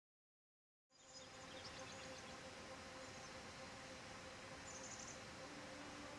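Faint background ambience that fades in about a second in after silence: a steady hiss and low hum, with a few brief high chirps.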